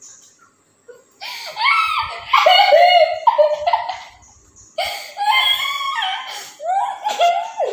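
A girl laughing hard in two long bouts, the first starting about a second in and the second about five seconds in.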